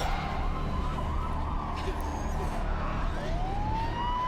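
Ambulance siren wailing, its pitch sinking and then rising again about three seconds in, over a steady low rumble.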